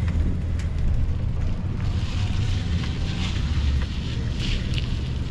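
Wind buffeting the microphone with a heavy low rumble, and a hiss that grows louder from about two seconds in.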